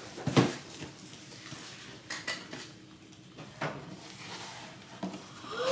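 Cardboard shipping box being handled and opened on a wooden floor: a sharp knock about half a second in, then a few lighter taps and rustles as the flaps are pulled open.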